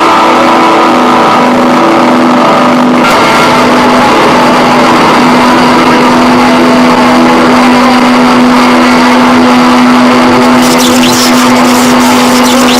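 Loud harsh noise, a wall of static over a steady droning hum, cutting in suddenly with crackling added near the end.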